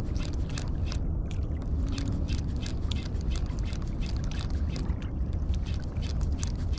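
Steady low rumble of wind on the microphone, with frequent short crackles and ticks throughout.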